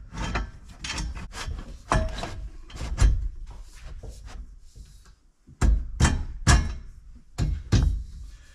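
A series of irregular knocks and thuds, about a dozen, of metal parts being handled and set down inside a stripped car body, with a short lull about halfway through.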